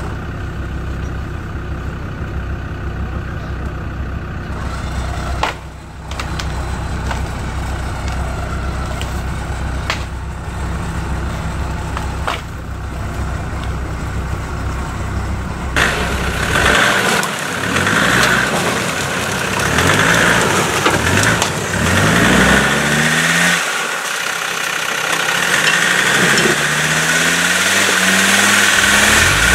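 Off-road vehicle engine idling steadily, with a couple of sharp knocks. About halfway through, a loud rushing noise comes in and the engine revs up several times, each rev rising in pitch.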